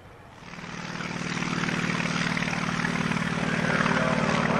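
CAC Wirraway's single radial piston engine and propeller running along the runway close by, a steady drone that swells in quickly from about half a second in and then holds.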